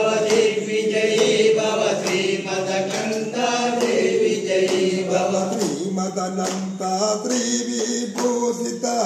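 Devotional Hindu chanting, a melodic sung mantra, over a steady held drone note.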